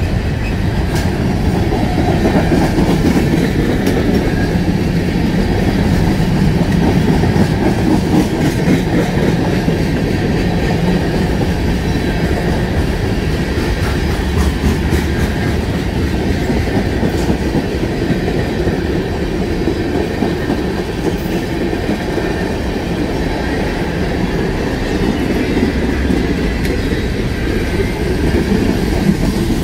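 Freight cars of a long freight train rolling past close by, a steady running noise of steel wheels on the rails.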